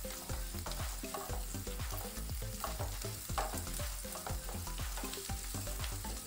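Wooden spatula stirring and scraping diced carrot, onion and chillies around a non-stick frying pan in repeated strokes, the vegetables sizzling in hot oil as they sauté.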